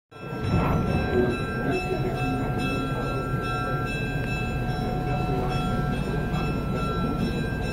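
Steady rumble of a heritage railroad train, with several steady high tones that start and stop over it.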